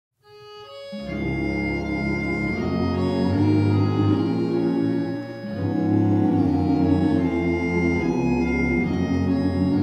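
Instrumental music introduction to a slow western song: held organ-like chords under a melody, fading in over the first second.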